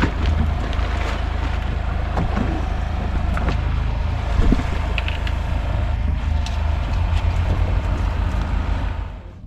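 Fishing boat's motor running steadily at sea, with wind on the microphone and a few small knocks.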